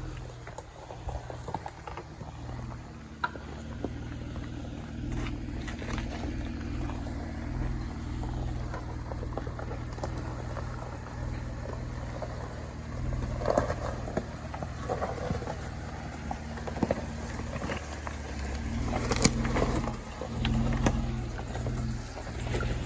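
Jeep Wrangler JK engine running low and steady while crawling down a rocky trail. Scattered knocks and crunches come from the tyres and suspension working over rocks, with a few louder rough stretches in the second half.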